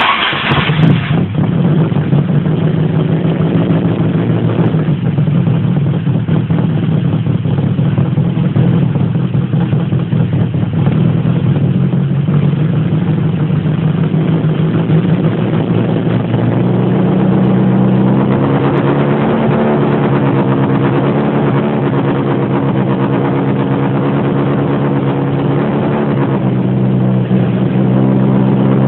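Lada car engine catching at the start and running at a steady idle, its pitch shifting up slightly for a few seconds about two-thirds of the way through and again near the end.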